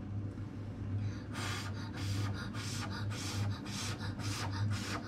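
A child blowing on a spoonful of hot jam to cool it: a quick series of short puffs of breath, about two to three a second, starting about a second in, over a steady low hum.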